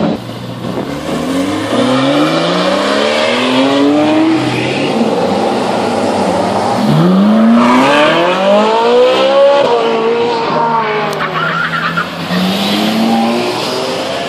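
High-performance supercar engines accelerating hard, their pitch climbing over a few seconds. About halfway through a louder run rises and then falls away, and a shorter climb comes near the end.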